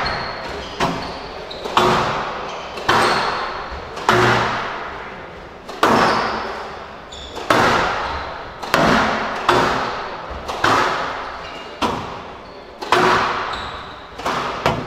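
A squash rally: sharp smacks of the ball off rackets and court walls, about one a second, each echoing around the enclosed court.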